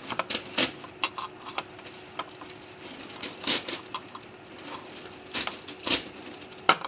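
Boiled potatoes being squeezed and mashed by hand in a bowl: irregular soft squishes with a few sharp clicks.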